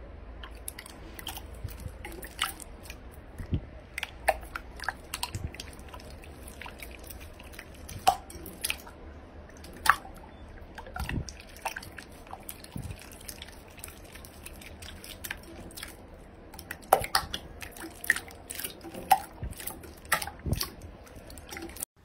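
Clear blue glitter slime being kneaded and squeezed by hand, giving irregular wet pops, clicks and squelches as air pockets break.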